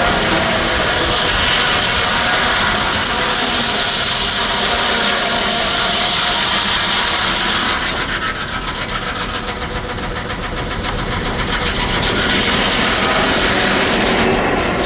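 Steam-driven Frick sawmill running, its circular saw cutting through a log with a loud steady rasping. About eight seconds in the sound turns duller and becomes a fast, even chatter, then brightens again near the end.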